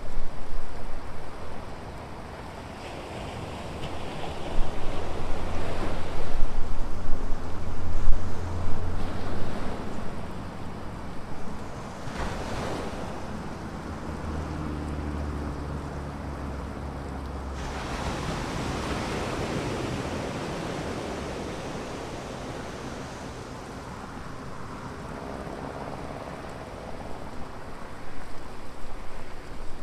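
Ocean surf breaking on a beach, rising and falling as waves come in, loudest in the first few seconds, again a few seconds in and near the end. Wind gusts buffet the microphone at times.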